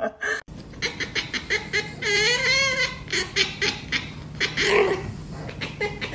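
Someone laughing in quick short bursts, with a long wavering high-pitched note about two seconds in.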